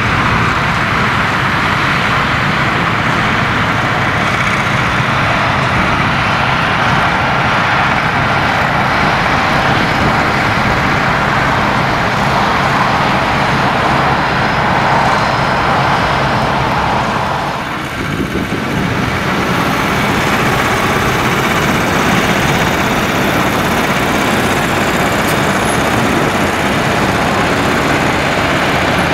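Heavy-haulage truck diesel engines running, loud and steady, with a short dip in level about eighteen seconds in.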